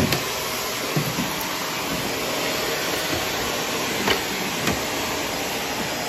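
Shark upright vacuum cleaner running steadily as it is pushed over a rug, its motor and suction making an even rushing noise, with a few short knocks along the way.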